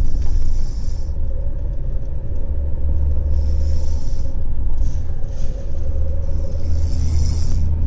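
Steady low rumble of a moving car heard from inside the cabin, with a person's breathy snore coming round about every three and a half seconds.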